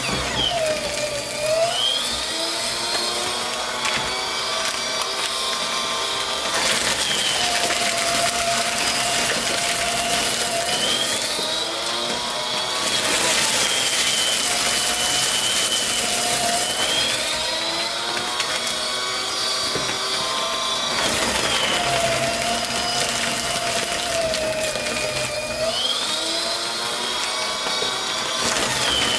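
AmazonBasics 12-sheet cross-cut paper shredder running while thick wads of glossy flyers are fed through it. The motor's whine sags in pitch under each load and climbs back as the paper clears, several times over, with bursts of paper-cutting noise as the cutters bite.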